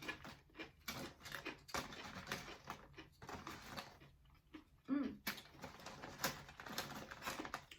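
Close-miked chewing and wet mouth clicks of someone eating aguachiles, raw shrimp in lime and chili, as a run of short irregular smacks, with a brief hummed "mm" about five seconds in.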